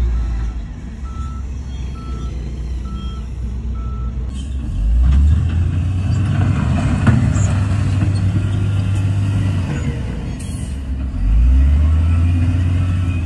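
Heavy diesel earthmoving machinery at work: a reverse alarm beeps at an even pace for about the first four seconds over a running engine. The engine then revs up about five seconds in and again near the end.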